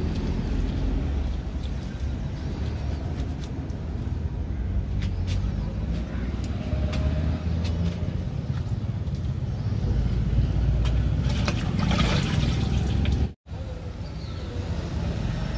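Wet rubbing, dripping and splashing as a whole duck carcass is scrubbed by hand in turmeric water, with scattered clicks, under a steady low rumble. The sound drops out for an instant near the end.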